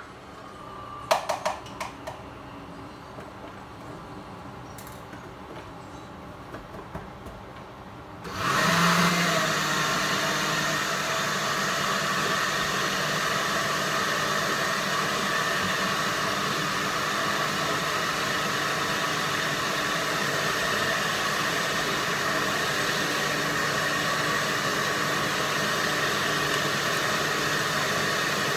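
A few sharp clatters about a second in. Then, about eight seconds in, a countertop blender switches on and runs steadily at one speed.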